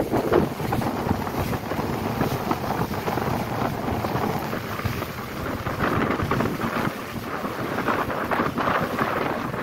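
Wind buffeting the microphone on the open deck of a moving ferry, a steady rushing noise that rises and falls in gusts.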